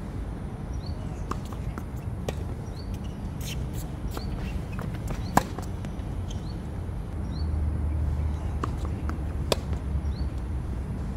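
Tennis ball struck by rackets in a rally: sharp hits, the loudest about five seconds in and another near the end, with fainter hits and bounces between. A bird chirps short rising notes about once a second over a low steady outdoor rumble.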